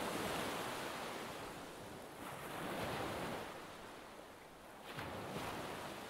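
Small waves washing onto a sandy beach, the surf swelling and fading three times.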